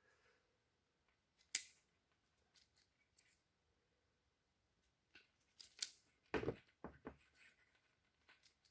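Hand crimping tool clicking and snapping shut on wire pin terminals, with light handling of the wires: one sharp click about a second and a half in, then a cluster of clicks near the middle to late part.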